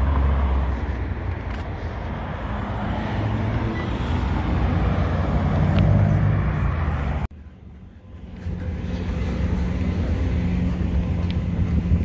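Street traffic: cars driving through a city intersection, a steady road noise with low engine and tyre rumble. The sound cuts out abruptly a little past halfway and comes back about a second later.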